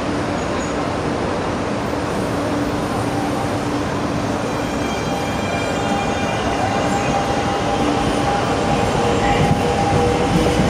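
SuperVia CNR 3000-series electric commuter train moving along the platform: a steady running rumble, with several high whining tones coming in about halfway through and the sound growing a little louder toward the end.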